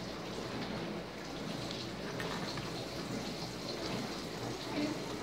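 Small plastic Lego bricks handled and pressed together, giving faint scattered clicks over a steady crackly hiss.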